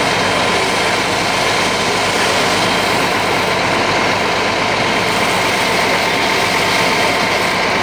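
A heavy engine idling steadily under a loud, even rushing noise.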